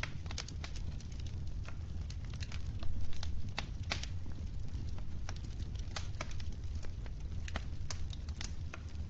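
Wood fire crackling: irregular sharp pops and snaps over a steady low rumble, with a louder flurry of crackles about three seconds in.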